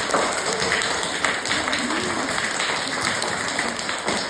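Applause from a small audience: many hands clapping in a dense, steady patter, with voices mixed in.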